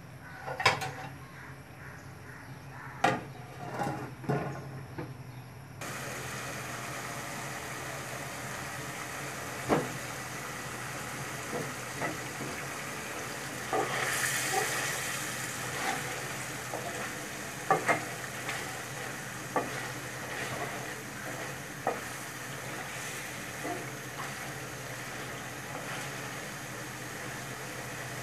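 Hilsa fish frying in spiced oil and gravy in an aluminium pot, as it is braised (koshano) in the spice paste. A steady sizzle sets in about six seconds in. Through it, a slotted spatula scrapes and knocks against the pot at irregular moments as the pieces are stirred; the knocks are the loudest sounds.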